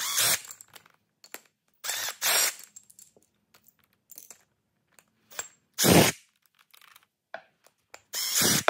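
Cordless impact driver backing out the cover bolts of a motorcycle ABS pump housing in several short bursts, with light clicks of loose screws and parts between them.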